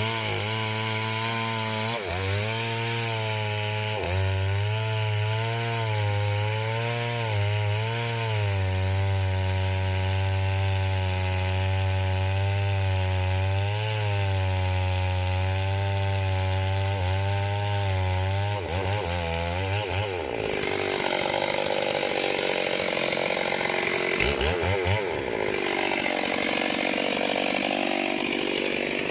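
Mini chainsaw running under load while cutting into a large tree, its engine pitch dipping and recovering repeatedly as the chain bites. About two-thirds of the way through the sound changes to a rougher, noisier whine.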